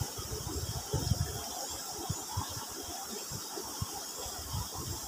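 Irregular low knocks and rustles of close handling while a small uceng fish and a bamboo rod are held in the hand, over a steady faint high-pitched hiss in the background.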